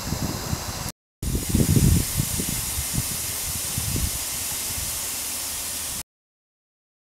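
Steam escaping from the steam-heating pipework under a steam-heated railway carriage at its coupling, hissing steadily with irregular low sputters as condensed water drips. The sound breaks off for a moment about a second in and stops about six seconds in.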